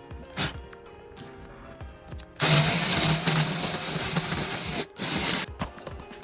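A handheld power tool runs for about two and a half seconds, stops, then runs again in a short burst, over background music.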